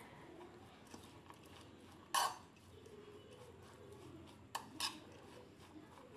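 Metal spoon stirring grated vegetables in a bowl: soft scraping with a few sharp clinks of the spoon against the bowl, the loudest about two seconds in and two more close together near the five-second mark.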